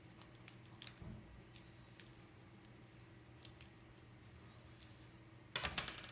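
Small sharp clicks and taps of hand tools and small plastic and metal parts being handled on an RC truck's steering linkage, scattered through, with a louder quick clatter of several clicks near the end.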